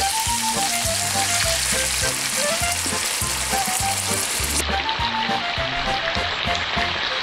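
Minced meat frying in a pan, sizzling steadily as tomato passata is poured in, over background music with a bouncy stepping melody and repeated bass notes. About four and a half seconds in, the sizzle loses its highest hiss.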